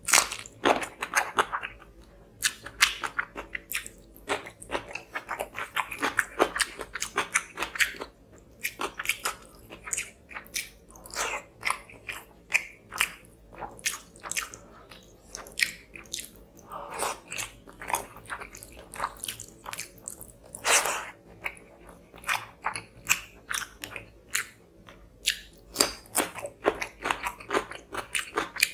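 Close-miked chewing and lip-smacking of a mouthful of rice and fish curry, a dense run of sharp wet clicks and smacks, with fingers squishing and pulling at the curried fish on the plate.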